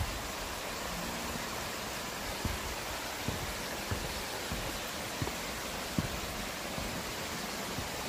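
Steady rush of a mountain stream and small waterfall, an even hiss of flowing water. A few faint low thumps come about once a second.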